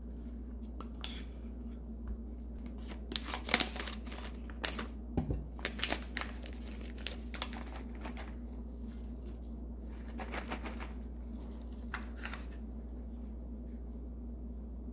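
Soft food-prep handling noises: scattered crinkles and light taps from plastic-gloved hands and a wooden spoon spreading mashed sweet potato on a tortilla and sprinkling diced cheese over it, over a faint steady low hum. The crackles come in two clusters, the busiest in the first half.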